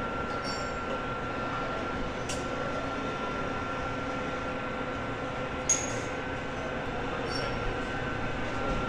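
Car assembly-hall ambience: a steady machinery hum with a faint high whine, broken by a few light metallic clinks, the sharpest about six seconds in.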